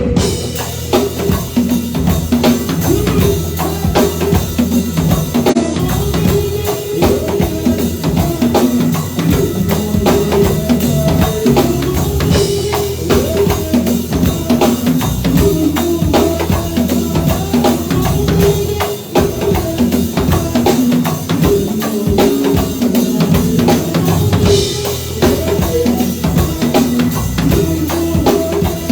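Live band playing a song, with a drum kit to the fore: steady bass drum and snare strokes under pitched bass and guitar lines.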